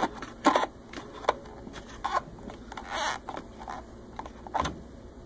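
Plastic elbow adapter being screwed by hand into the hose elbow of a Rug Doctor Mighty Pro X3 carpet cleaner. Its threads rasp and click in about half a dozen short, irregular strokes, one a little longer about three seconds in. The tight threads bind: the fit is sticky.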